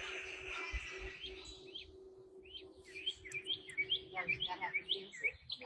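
Small birds chirping: a quick run of short rising chirps starting about halfway through, over a faint steady hum that stops near the end.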